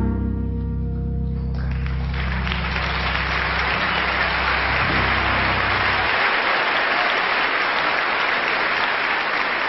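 The final note of a trumpet and double bass duo rings out and fades, the bass note lasting about six seconds. Audience applause starts about a second and a half in and carries on steadily.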